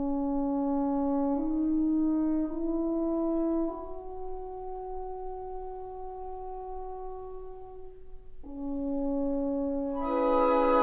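Background music: a slow melody of long held, horn-like notes that step upward, drop back, then fill out into a fuller chord near the end.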